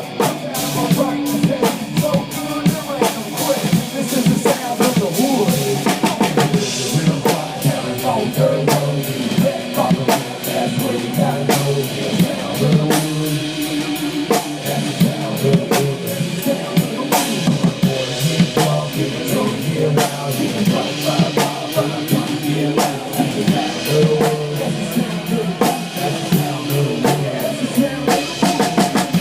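Loud music with a steady drum-kit beat, kick and snare, under pitched instrument lines.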